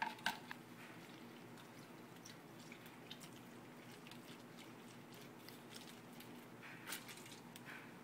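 Faint kitchen handling sounds as hummus ingredients go into a food processor: a few sharp clicks at the start, scattered small ticks and squishy sounds, and another short cluster of clicks near the end.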